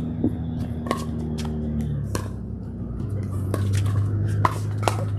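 Pickleball paddles hitting a plastic ball in a rally: a string of sharp pops, roughly one every half second to a second, over a low steady hum.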